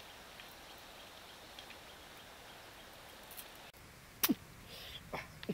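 Faint outdoor background, then a woven wicker basket set down on stones, giving a few short sharp creaks and knocks, the loudest about four seconds in.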